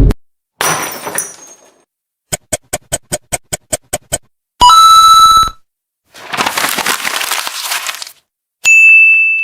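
A string of separate short sound effects with brief silences between them: a crash about half a second in, then about a dozen sharp clicks at roughly six a second, then a loud ringing tone, then a burst of hiss, and a high steady beep near the end.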